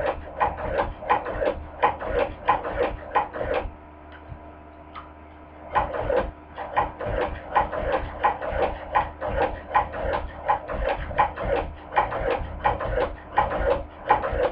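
Hand-crank cobbler sewing machine stitching thick pleather, its mechanism clicking evenly about three times a second. The stitching stops for about two seconds near the middle, then picks up again. It is sewing smoothly, like butter.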